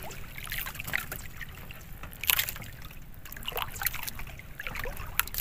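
Water dripping and splashing in short, irregular bursts beside a small fishing boat as a wet handline is hauled in hand over hand.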